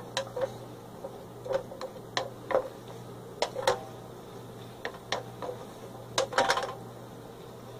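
Spatula tapping and scraping against a stainless steel skillet as vegetables are stirred, in irregular short knocks with clusters of quick taps.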